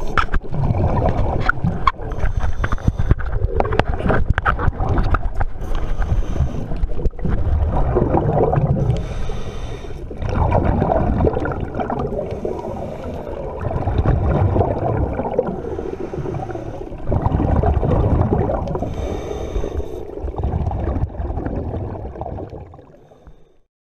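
Scuba diver breathing through a regulator underwater: a hiss on each inhale and a low bubbling rumble on each exhale, repeating every few seconds. Fades out just before the end.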